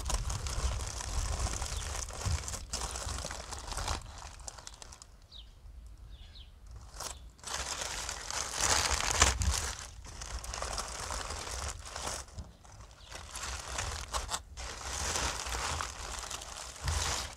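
Baking parchment and aluminium foil crinkling and tearing as they are pulled open by hand, in irregular bursts with short pauses, loudest about halfway through.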